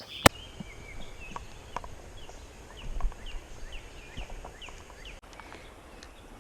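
Outdoor ambience with a small bird calling over and over: short, falling chirps several times a second over a faint low rumble. A single sharp click sounds just after the start.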